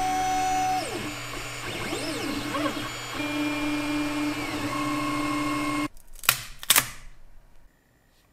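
Ender 3D printer's stepper motors whining in tones that glide up and down and jump in pitch as the print head moves. The whine cuts off about six seconds in, followed by two sharp knocks about half a second apart.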